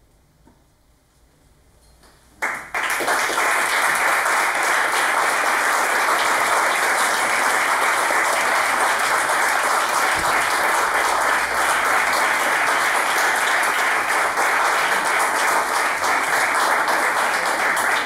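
Quiet for about two and a half seconds, then an audience suddenly breaks into loud applause that keeps going at a steady level.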